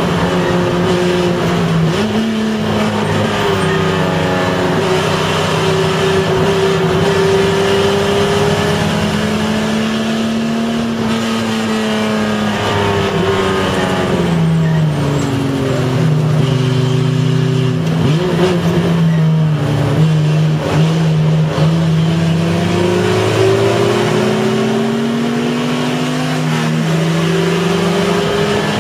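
Race car's engine heard from inside the cabin under racing load, its note climbing and dropping with throttle and gear changes, with sudden steps at the shifts and a long steady climb in pitch near the end as it accelerates.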